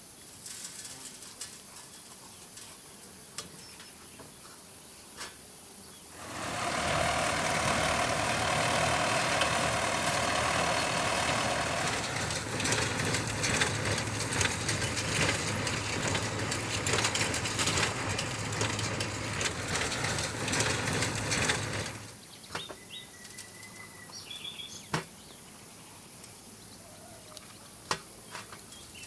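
Outdoor ambience of a steady high insect buzz with a few short bird chirps. For about fifteen seconds in the middle a louder noise covers it, first an even rush and then rapid crackling.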